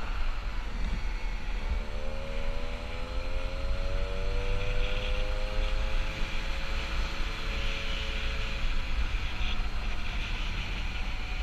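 Peugeot 103 moped's 50 cc two-stroke single-cylinder engine running on the move. Its note rises as it accelerates from about two seconds in, then eases off slowly, with wind rumbling on the microphone.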